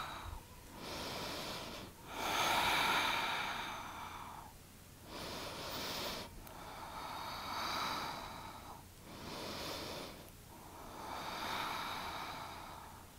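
A person breathing slowly and deeply: about six long swells of breath in and out, each one to two seconds, with short pauses between them.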